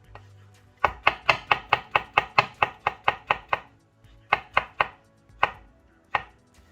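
Kitchen knife slicing shiitake mushrooms on a cutting board: a fast run of sharp knife strikes on the board, about five a second, then a short pause and a few more single strikes near the end.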